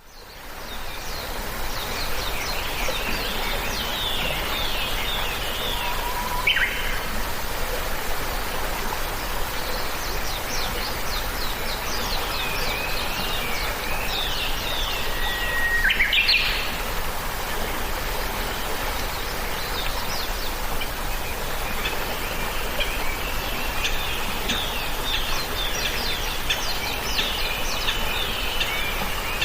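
Several birds chirping and singing in busy runs of short high notes, with two clear whistles that step up in pitch, about a third of the way in and just past halfway, over a steady background hiss.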